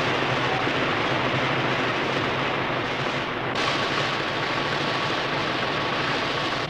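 Newspaper printing presses running: a steady, dense mechanical din. The sound turns brighter about three and a half seconds in.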